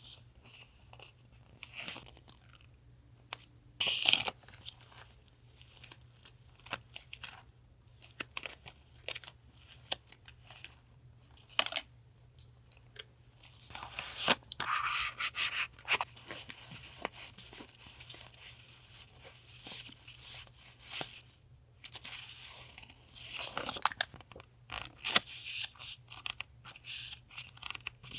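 Paper and packaging being handled and unpacked: rustling and tearing with many small taps and clicks. There are longer stretches of rustling about a third of the way in, around the middle and again near the end.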